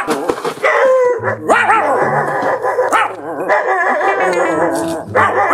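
Drawn-out, wavering howling cries, over background music with a steady low bass.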